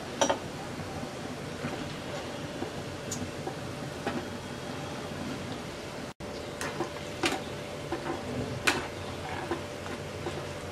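Hot oil sizzling and crackling as pieces of flour-and-sesame dough deep-fry in a karahi, with a few sharp, louder pops.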